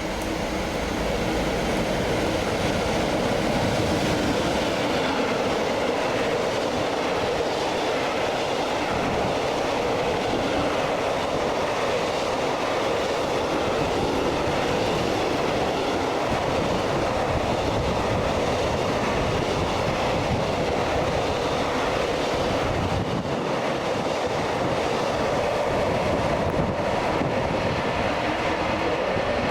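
A train passing close by on the line, the steady noise of its wheels running on the rails building up over the first couple of seconds and then holding.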